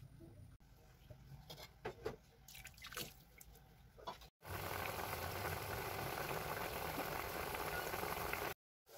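Wet squelching and scattered small clicks of a hand mixing small fish with spice paste in a metal bowl. After a short break about four seconds in, a pot of fish curry boils hard on the stove with a steady, louder bubbling that cuts off suddenly near the end.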